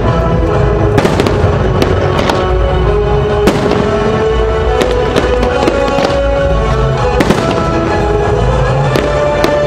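Fireworks bursting, a sharp bang every second or so, over a loud music soundtrack playing throughout.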